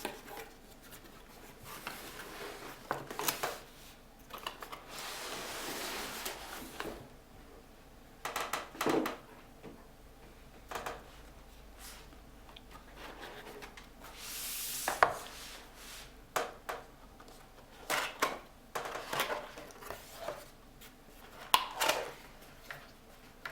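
A cardboard graphics card box being opened and its packaging handled by hand: cardboard sliding and rubbing in a few longer stretches, with scattered taps and knocks.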